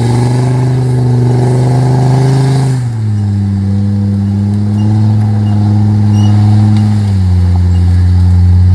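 Land Rover Discovery TD5's five-cylinder turbodiesel engine pulling under load as it crawls up a deep muddy rut. The engine note holds steady, then drops in pitch about three seconds in and again about seven seconds in.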